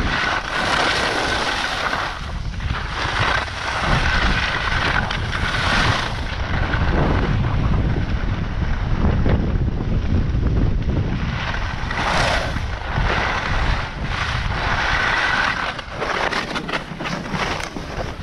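Wind rushing over the microphone of a camera carried by a downhill skier, mixed with the hiss and scrape of skis on groomed snow; the rush rises and falls through the run.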